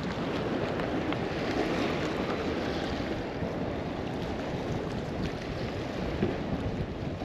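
Wind buffeting the microphone, a steady rumbling noise, with open water beneath it.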